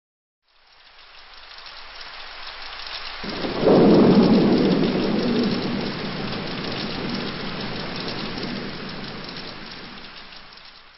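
Rain hiss fading in, with a roll of thunder breaking about three seconds in and slowly dying away.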